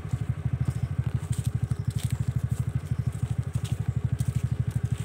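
Motorcycle engine running slowly, a steady low putter of about ten beats a second, with light clicks and rattles over it.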